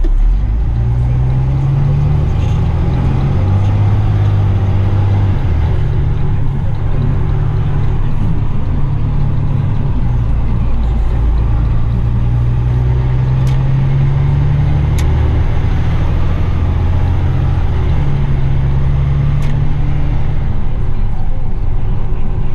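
Diesel engine of a heavy rigid dump truck running on the road, heard from inside the cab: a loud, steady low drone whose pitch shifts up and down several times.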